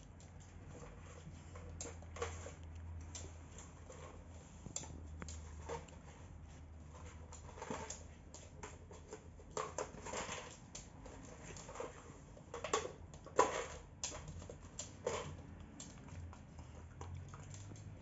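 A dog nosing and pushing a plastic bottle treat toy with kibble inside across a hard floor: irregular clicks, knocks and rattles, with a louder cluster of clatters about thirteen seconds in.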